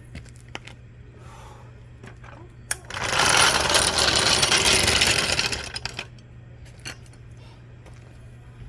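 A handheld power tool runs loudly for about three seconds, starting just after a sharp click, over a steady low hum.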